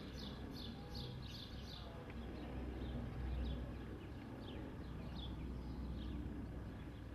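Small birds chirping: short falling chirps, a quick run of them in the first two seconds and then scattered ones, over a steady low rumble.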